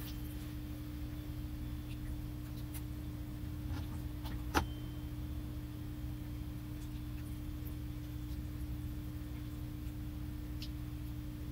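Steady low hum with a faint constant tone, scattered small clicks, and one sharper click about four and a half seconds in.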